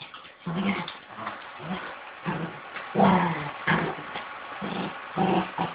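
Two puppies, a Eurasier and a Shih-Tzu, play-growling in short bursts while they wrestle, the loudest growl about three seconds in.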